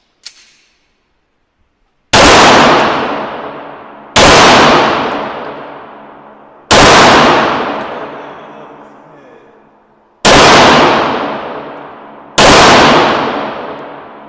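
Five single shots from a 9mm Beretta 92FS pistol, spaced about two to three and a half seconds apart. Each shot is followed by a long fading echo. A couple of faint clicks come just before the first shot.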